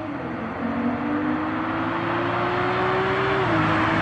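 Turbocharged BMW inline-six, catalytic converters still fitted, accelerating toward the listener and growing louder. Its pitch rises steadily, dips briefly about three and a half seconds in, then climbs again.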